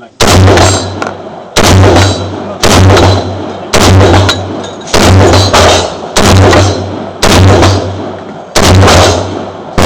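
Semi-automatic M14-type rifle in .308 fired in a steady rapid string, about eight shots roughly a second apart, each sharp report trailing off in a short ringing echo.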